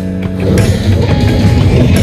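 Background music with guitar, getting louder about half a second in.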